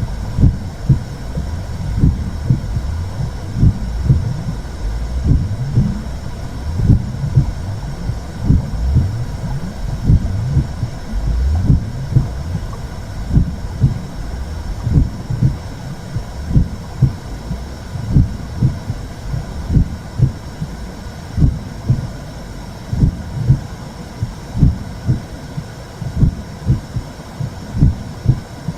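Womb sound for soothing a baby: low heartbeat thumps repeating in a steady rhythm over a continuous low whooshing rumble.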